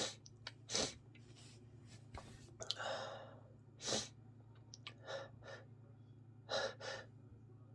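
A person with a congested head cold sniffling and breathing: short, noisy sniffs and breaths, a longer sigh about three seconds in, and two quick gasping in-breaths near the end.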